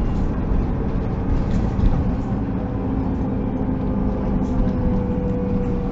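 Solaris Urbino 12 city bus under way, heard from inside the cabin: engine and drivetrain running steadily over a low road rumble. A faint whine holds steady and dips slightly in pitch near the end.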